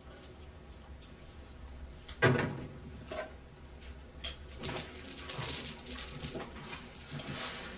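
Household handling sounds in a small kitchen: a single hard knock, like a cupboard door or a pot being set down, about two seconds in, then a run of small clicks and clinks of crockery or utensils being handled.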